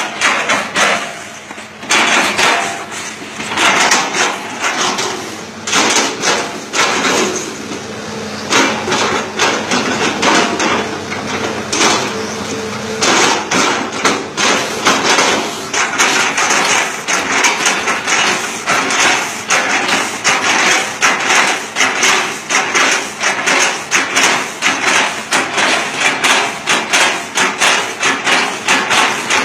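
Hitachi Zaxis 200-5G excavator running at full speed, its bucket striking and chopping an oil palm trunk in rapid repeated knocks, several a second in the second half, over a steady engine hum.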